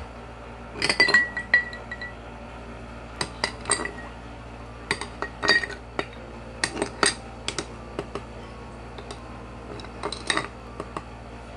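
Ice cubes being added one at a time with a metal spoon to a drinking glass of coffee, clinking against the glass and spoon in a string of sharp, uneven clinks, with the glass ringing briefly after one of them about a second in.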